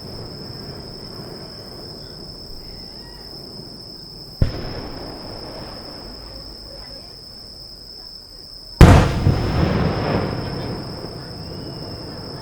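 Aerial firework shells bursting: a sharp bang about four seconds in, then a much louder boom near the middle, followed by crackling and a long echoing rumble that fades. A steady high insect trill runs underneath.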